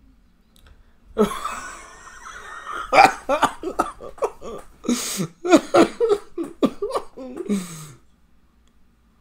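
A man laughing hard behind his hand, in rapid pulsed bursts with breathy gusts, from about a second in until near the end.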